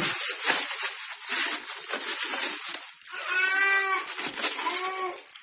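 Packaging rustling and scraping as a subwoofer unit is lifted out of its box, followed by two short, squeaky pitched sounds, the first about three seconds in and a shorter one near the end.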